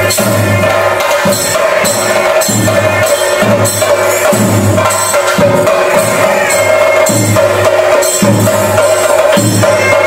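Chenda drums beaten with sticks in a loud, steady rhythm, the theyyam ritual drumming, with deep strokes recurring roughly once a second under a fast run of sharper stick beats.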